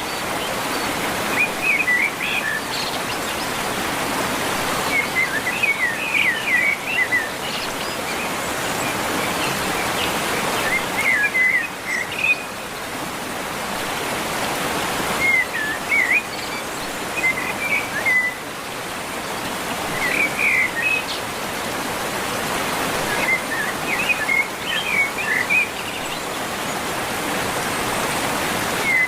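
Songbirds chirping in short twittering phrases every four or five seconds over a steady rushing noise that swells and falls back.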